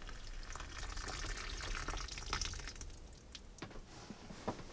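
Hot water poured from an electric kettle onto a compressed coconut-coir brick, a soft trickling pour with small drips and clicks, easing off about three seconds in.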